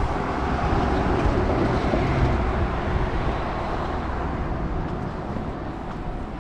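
A vehicle rumbling past amid city street noise, a little louder about one to three seconds in, then easing.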